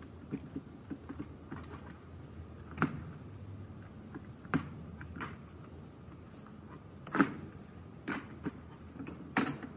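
Scattered metallic clicks, clinks and light knocks of hand tools and small metal parts as the burnt stator (charging coil) is unbolted from a Suzuki GSX-R 600 engine. About seven sharp clicks, the loudest about seven seconds in.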